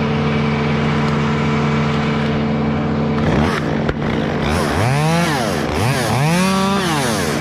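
Chainsaw revved up and down about three times in the second half, its pitch rising and falling with each rev, over a steady engine hum.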